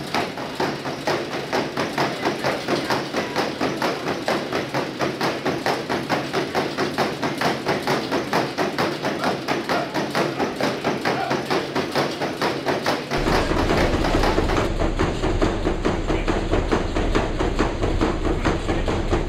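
A horse's hooves striking a horse treadmill's moving belt in a fast, even rhythm of thuds. After about thirteen seconds a low steady hum joins the hoofbeats.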